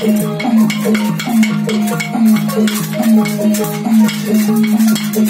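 Burmese traditional music for marionette dancing: a fast, even beat of struck percussion with pitched notes that slide and repeat, over a low tone held throughout.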